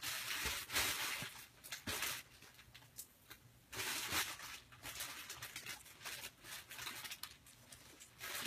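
Kittens scuffling and playing: bursts of scratching and rustling with light taps, loudest in the first two seconds and again about four seconds in.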